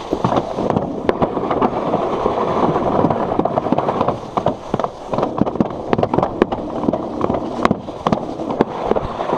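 Alpine slide sled running fast down its trough-shaped track: a steady rattling rumble scattered with many sharp clicks and knocks.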